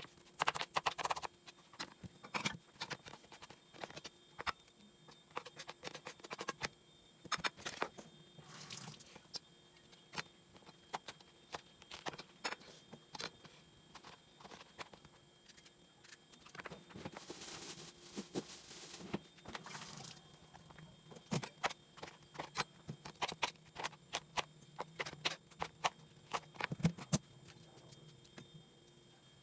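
Irregular light clicks and taps of kitchen food preparation, with a short stretch of rustling noise about halfway through.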